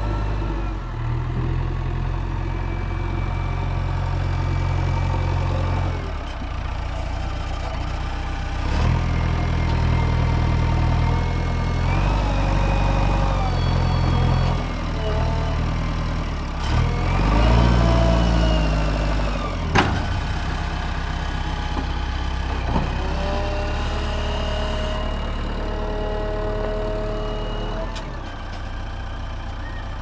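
JCB 3DX backhoe loader's diesel engine running and pulling under changing load as the hydraulics work the arm and bucket. Its note rises and falls, with whining tones over it, and there is one sharp knock about twenty seconds in.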